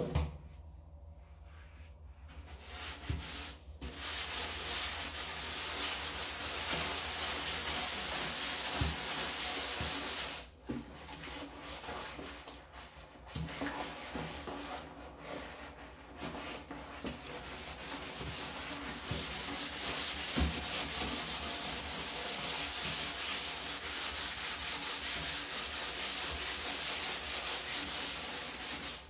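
A sponge with powdered cleanser scrubbed hard and fast against the inside of a plastic garbage can: a rough, rapid rubbing that starts a couple of seconds in, breaks off briefly around the middle, then carries on.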